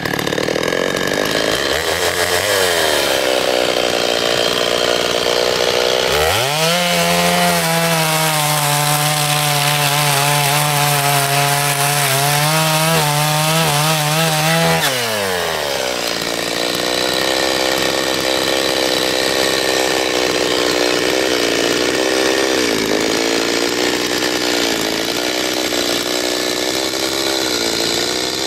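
Chainsaw running and cutting into a rotten, hollow log. It revs up sharply about six seconds in and holds high revs through the cut for about nine seconds, then drops back to lower, wavering revs.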